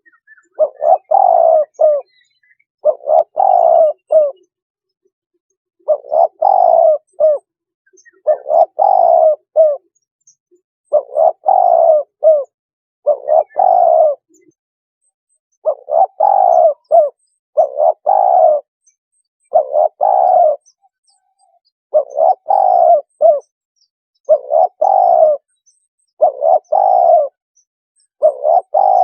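Spotted dove cooing: a phrase of a few coos repeated about every two seconds, loud and clean. This is a recorded lure call for spotted doves.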